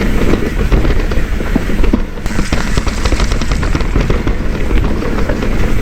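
Mountain bike riding fast down a rough dirt trail: tyres rolling over bumps and the bike rattling with many quick small knocks over a steady low rumble, easing off briefly about two seconds in.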